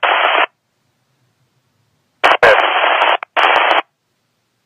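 Police scanner radio hissing in short bursts of static: one burst cuts off abruptly about half a second in, then two more follow about two seconds in, the first opening with clicks, with dead silence between them. These are the bursts a scanner gives as a transmission keys up or drops without a voice on it.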